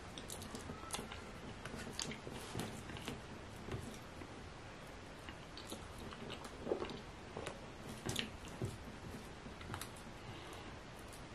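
Eating sounds of fufu with slimy ogbono soup eaten by hand: wet squishing, chewing and lip smacks, heard as irregular soft clicks and smacks, the sharpest a little past halfway.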